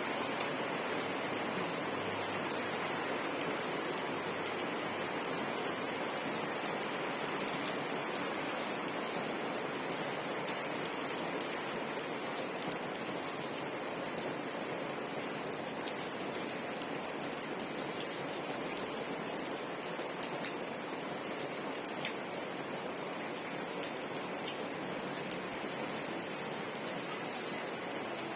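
Steady rainfall: an even hiss of rain with a few louder drop ticks here and there.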